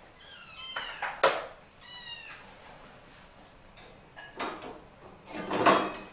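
Domestic cat meowing twice, a bending call then a shorter level one, among several loud sharp knocks and clatters from cage cleaning, the loudest near the end.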